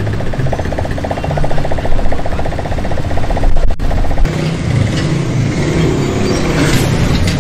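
Small motorcycle engines of loaded cargo motor tricycles running close by as they move off, with a fast, even putter. About four seconds in the sound changes to a rougher, lower engine noise.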